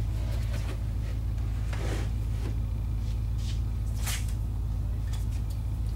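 Aluminum flexible dryer vent duct being handled, giving a few short crinkles and rustles about two, three and a half and four seconds in, over a steady low hum.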